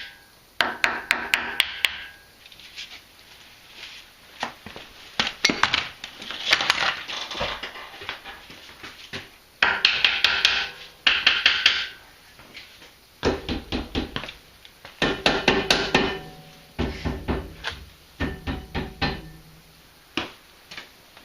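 Hand tools clicking and tapping on a brake caliper and its bleeder fitting during brake bleeding. The clicks come in quick runs of several a second, with pauses between, and a few duller knocks in the second half.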